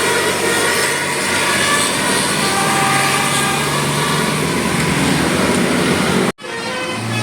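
A large road vehicle's engine running close by over loud street and traffic noise, with a few brief high tones over it. The sound cuts out abruptly for a moment about six seconds in, then resumes.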